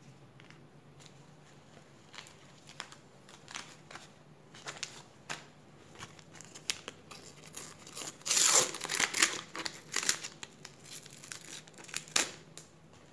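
Handling and tearing open a Panini sticker packet: scattered crinkles and rustles of the wrapper, with a louder run of tearing and crinkling about eight seconds in.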